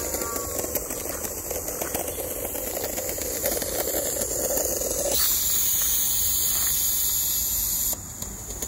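Live-steam model of a New South Wales C38 class steam locomotive running slowly, with a steady hiss of steam. About five seconds in, a louder, higher-pitched steam hiss starts, holds for nearly three seconds, then cuts off suddenly.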